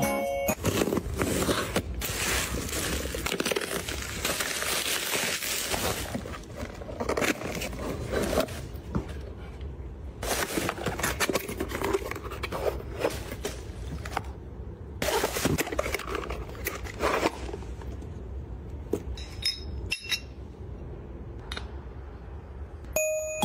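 Plastic food packaging crinkling and rustling in bursts as bags are handled and packed into fridge and freezer drawers, with light clinks and knocks of plastic drawers and containers and a few sharp clicks near the end.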